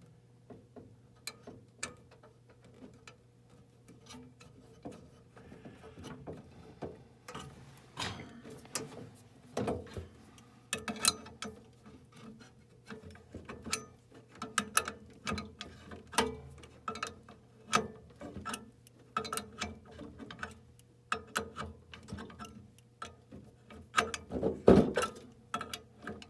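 Threaded gas-pipe fitting being started and tightened on a furnace gas line after pipe dope was applied: irregular metal clicks, ticks and clinks of the fitting and wrench, growing denser and louder, with the loudest clatter near the end. A faint steady hum runs underneath.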